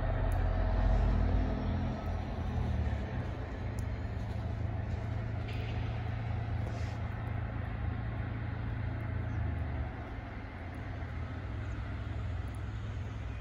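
Diesel locomotive of an MBTA commuter train running with a steady low rumble as the train pulls away. The rumble drops in loudness about two seconds in and again near the end.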